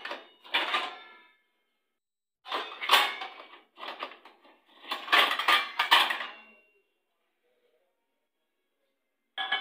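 Stainless steel plates clanging and ringing as they are pulled out of a metal dish rack and handled, in several clattering bursts with pauses between them.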